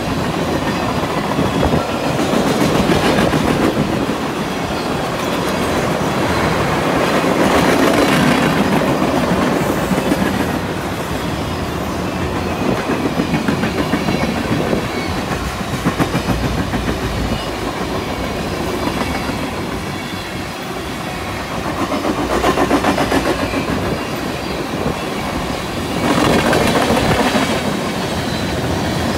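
Freight train tank cars rolling past, steel wheels clicking and rumbling on the rails in a steady rhythm. The noise swells and eases several times as the cars go by.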